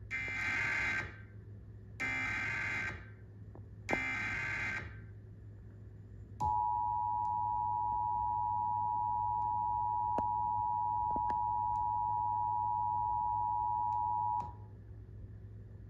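Emergency Alert System signal on a TV broadcast: three short raspy bursts of digital SAME header data, about two seconds apart. Then the steady two-tone attention signal sounds for about eight seconds and cuts off.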